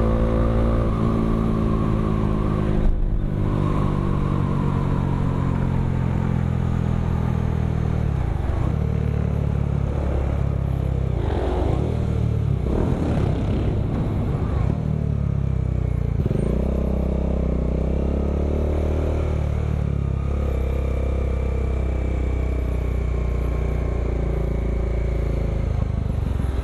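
Bajaj Dominar 400 UG2's single-cylinder engine running through an aftermarket Akrapovic M1 exhaust while riding. The engine note falls over the first several seconds, dips and picks up again a few times in the middle, then holds steady. A short click about three seconds in.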